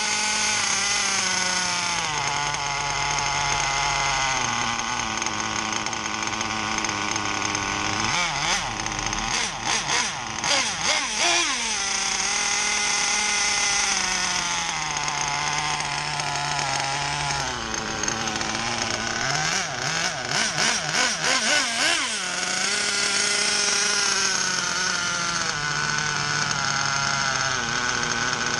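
Hyper .28 nitro engine in an RC buggy running on test while its three-needle carburettor is being tuned. The pitch shifts up and down, with two spells of quick, uneven revving about eight and twenty seconds in.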